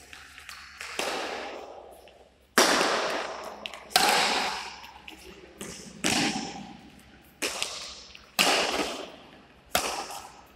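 Badminton rackets striking a shuttlecock in a rally: seven sharp hits about one to two seconds apart, each echoing in the hall.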